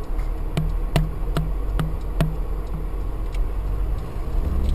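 A car's turn-signal indicator ticking about two and a half times a second over the low rumble of the engine and tyres inside the cabin; the ticking stops a little before the halfway point and comes back near the end.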